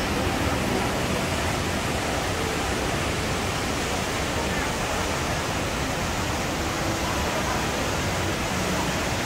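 Steady rush of the HSBC Rain Vortex, a 40-metre indoor waterfall pouring from the roof down into its basin.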